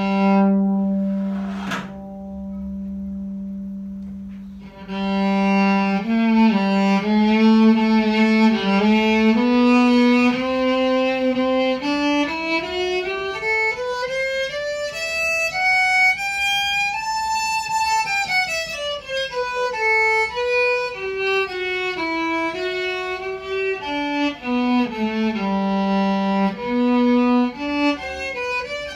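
Old Japanese electric violin bowed: a long low note held for the first few seconds, then a melody that climbs steadily to a high note about halfway through and steps back down.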